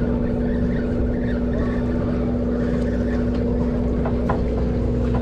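Charter fishing boat's engine running steadily with a constant hum, with two faint ticks about four seconds in.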